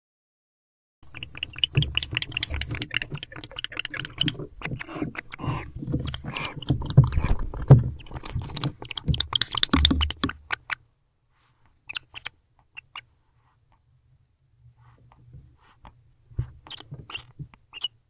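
Barn owl brushing and scratching against the nest-box camera at close range: a dense run of crackling scratches and clicks starting about a second in and lasting about ten seconds, then only a few scattered clicks and scrapes.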